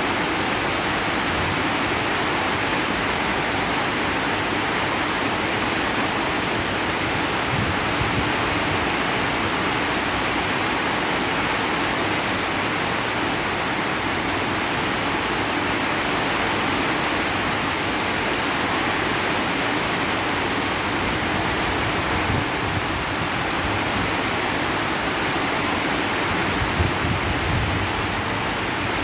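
Steady heavy rain falling on a zinc sheet roof, an even unbroken rush, with a soft low thump near the end.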